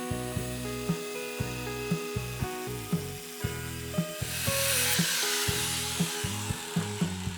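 Background music with a steady beat. A hissing, rasping noise swells up about four seconds in and fades away.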